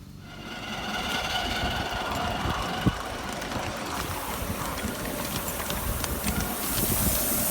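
A 5-inch gauge miniature steam locomotive running, with a steady ringing tone for the first few seconds. A loud hiss of steam builds about six to seven seconds in.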